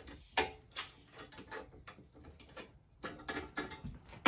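Bolts on the frame of an Alaska chainsaw mill being loosened with a wrench: a series of irregular light metal clicks and taps.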